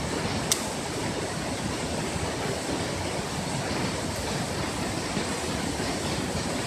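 Campfire burning with a steady rushing noise, and one sharp pop about half a second in.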